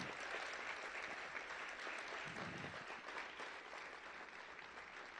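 A church congregation applauding, quiet and steadily dying away.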